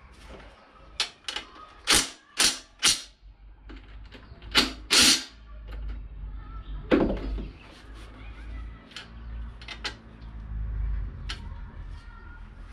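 Impact wrench fired in short bursts on the intake manifold bolts: about seven quick bursts in the first five seconds, then a knock near seven seconds and light clicks of tools against metal.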